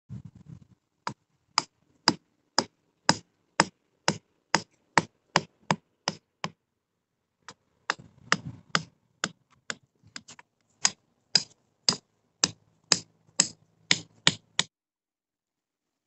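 A run of sharp, hard taps or knocks, about two a second, with a short pause about halfway through, stopping abruptly near the end.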